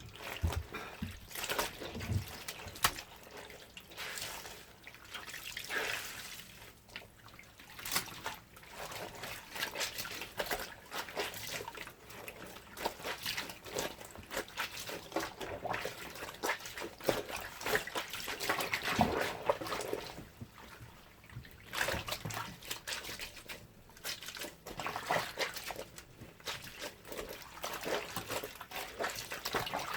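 Clothes being washed by hand in water: irregular splashing, trickling and dripping as the wet fabric is worked and squeezed.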